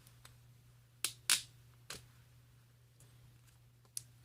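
A few sharp plastic clicks and crackles, three of them loudest within the first two seconds, as the protective plastic film is peeled off a Samsung Galaxy Fold phone.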